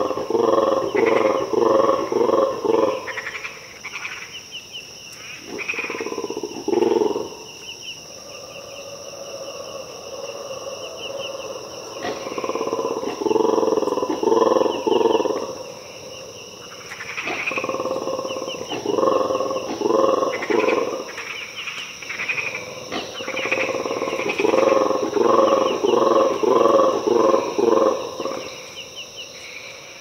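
Mantled guerezas (black-and-white colobus monkeys) roaring: about five bouts of deep, rattling roars, each a rapid series of pulses at roughly four a second. These are their territorial calls.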